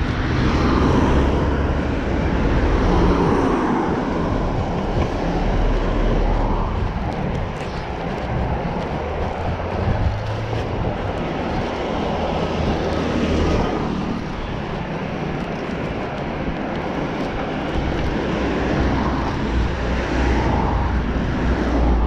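Wind rushing over the microphone of a camera moving along a street, with road and tyre rumble that swells and fades.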